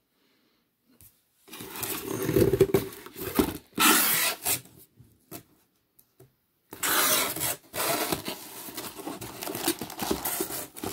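A cardboard shipping box being opened by hand and a boxed figure set slid out of it, cardboard and packaging rustling and scraping. Silent for about the first second and a half, then two stretches of handling noise with a short pause near the middle.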